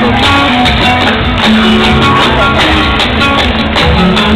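Loud Andalusian dance music with strummed guitar and a sharp, steady beat.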